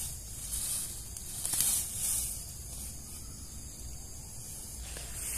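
Leaves and undergrowth rustling in irregular swells as someone handles plants and moves through dense brush, over a steady high hiss.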